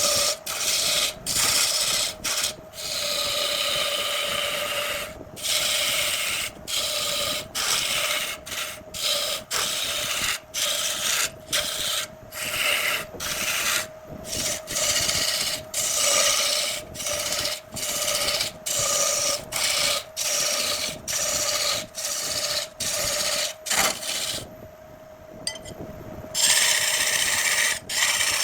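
Jackfruit wood spinning on a wood lathe with a tool scraping or sanding against it in short passes that break off and resume roughly once a second, over the lathe's steady motor hum. Late on, the scraping stops for about two seconds and only the hum is left.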